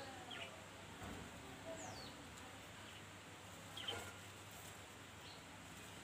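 Faint bird calls in the background: a few short, falling chirps, the clearest a little under four seconds in.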